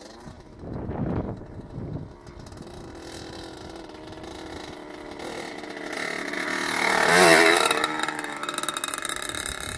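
Two-stroke engine of a 1982 Yamaha YZ80 motocross bike running, growing louder as the bike approaches. It is loudest about seven seconds in, with wavering pitch as it passes, then drops back a little. A short burst of noise comes about a second in.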